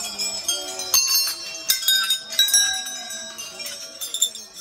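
Hindu temple bells struck again and again by visitors, the strikes overlapping so that several ringing tones hang on together.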